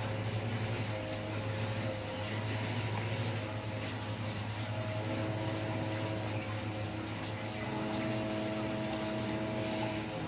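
Electric pet hair clipper running with a steady buzz while cutting a dog's coat, its higher tones shifting a couple of times as the blade meets the hair.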